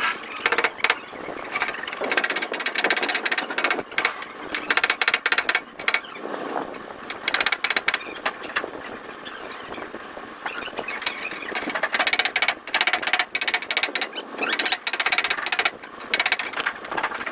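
Quick bursts of sharp light taps on car body sheet metal, repeated over and over, as in tapping down a dent during paintless dent repair. A faint steady high whine runs underneath.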